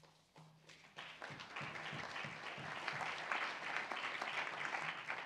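Audience applauding: scattered claps at first, building about a second in to steady applause.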